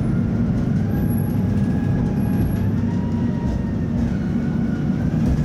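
Tatra T3 tram running, with a steady low rumble of wheels and car body and a faint whine that rises slowly and drops back near the end.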